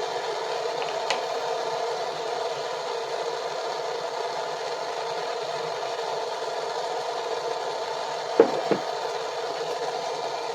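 Propane torch flame burning with a steady hiss. There is a light click about a second in, and two sharp knocks in quick succession near the end.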